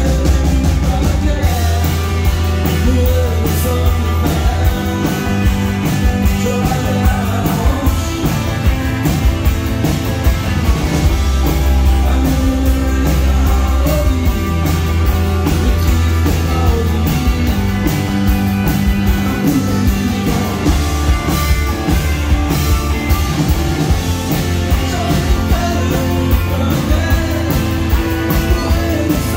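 Live rock band playing a song: drums with a heavy bass line, acoustic and electric guitars and a trumpet, with a man singing.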